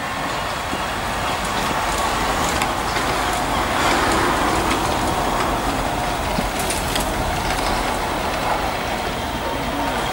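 Class 313 electric multiple unit pulling away from the station, its running noise steady and a little louder about four seconds in.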